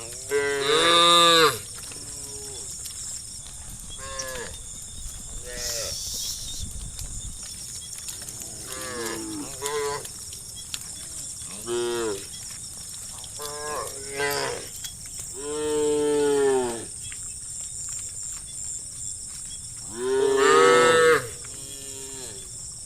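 Cows mooing back and forth, about a dozen calls, some short and some long and drawn out, the loudest about a second in, around the middle, and near the end.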